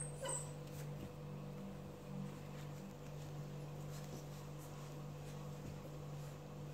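Faint scuffling and small knocks of puppies playing on a rug, over a steady low electrical hum, with a short falling squeak just after the start.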